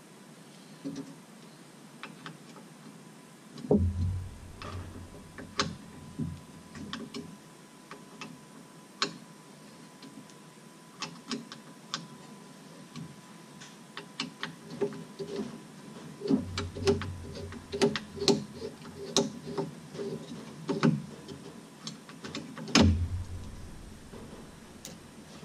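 Irregular clicks and taps of a small hand tool and parts against the plastic and metal linkage of a Mercedes SLK230 Vario roof's flip shelf, with a few louder dull knocks.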